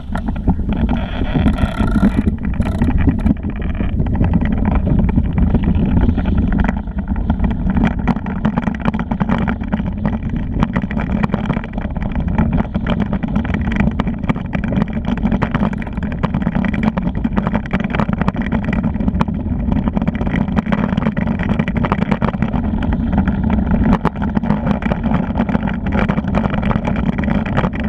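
A vehicle travelling over hard, cracked dry-lakebed ground: a steady low rumble with many small ticks and rattles throughout.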